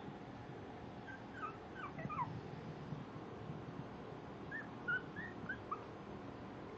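Four-week-old Maltese puppies whimpering: faint, short high-pitched squeaks in two little runs, about a second in and again in the second half, as the puppies cry to be let out.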